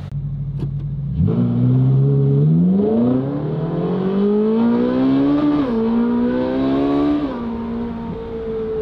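Ferrari 458 Speciale's naturally aspirated V8 through a loud full custom exhaust, heard inside the cabin: idling, then accelerating hard with the revs climbing about a second in, a quick shift at about five and a half seconds, a further climb, then a drop to a steady lower note near the end.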